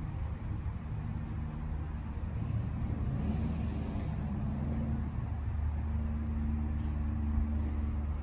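1971 Chevrolet C10's engine running shortly after a cold start, a steady low sound that rises and falls in pitch briefly about three seconds in, then settles steady again.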